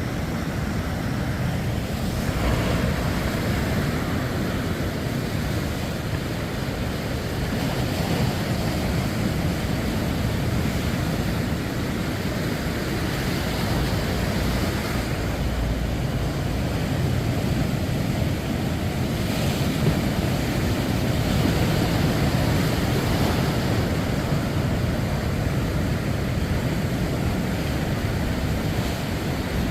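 Sea waves breaking on the shore: a steady wash of surf that swells every few seconds as each wave comes in.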